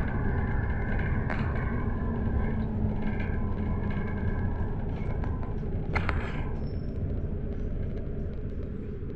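Cabin noise of a GAZelle Next minibus driving in city traffic: a steady low engine and road rumble. A single sharp knock comes about six seconds in, and the rumble grows quieter and duller near the end.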